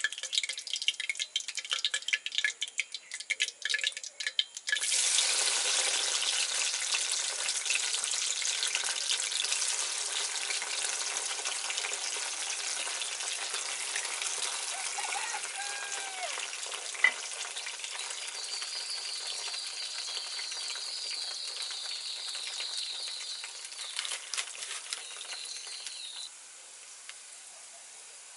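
Breadfruit slices deep-frying in hot coconut oil in a metal wok. It starts with scattered crackling pops from the hot oil. About five seconds in, a loud steady sizzle sets in suddenly as the slices go into the oil, then eases slowly and drops quieter near the end, with a single sharp click partway through.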